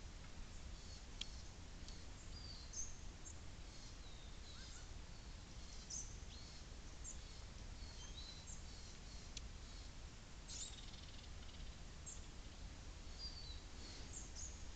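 Faint chirps and short whistles of small songbirds, scattered irregularly, over a low steady hum.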